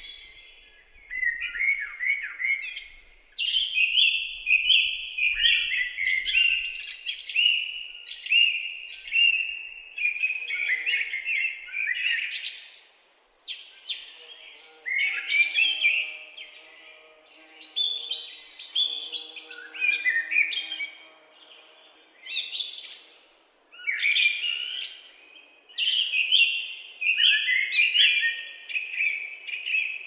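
Songbirds singing in quick, high chirping phrases a few seconds long, separated by short pauses, with fainter, lower calls underneath in the middle.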